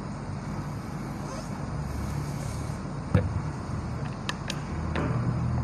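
A steady low hum, with a few sharp clicks and knocks from about three seconds in as a man settles at a desk and handles the base of a gooseneck microphone.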